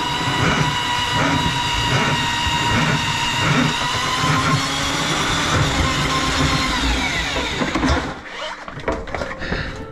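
Motorised drain snake running steadily while clearing a grease-clogged drain line: a motor whine with a regular low thump. About eight seconds in the whine falls in pitch and the machine stops.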